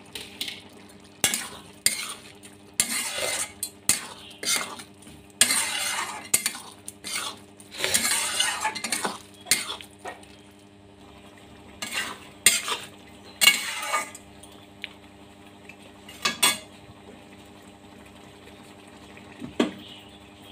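A spatula stirs and scrapes egg curry around a metal kadai in irregular strokes and clinks, which stop about three-quarters of the way through; one more knock comes near the end. A steady low hum runs underneath.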